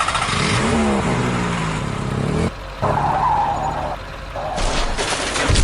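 Vehicle engine sounds: an engine revving up and running, cutting off suddenly about two and a half seconds in, then a higher whine and a burst of hiss near the end.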